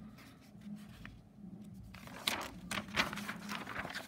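Sheets of printer paper rustling and crinkling as worksheet pages are handled and turned over, starting about halfway in. A faint steady hum runs underneath.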